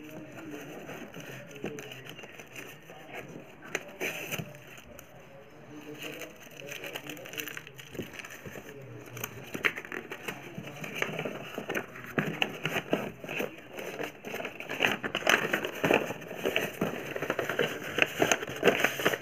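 Paper rustling and crinkling as folded invoice sheets are pulled out and unfolded, a run of crackly rustles that grows denser and louder in the second half.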